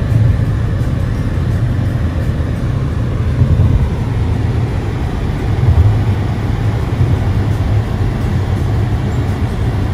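Car driving, a steady low rumble of engine and road noise heard from inside the cabin.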